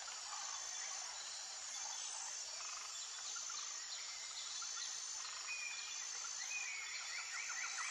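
Faint outdoor ambience of small birds twittering: short sliding chirps and a few quick trills over a steady high hiss.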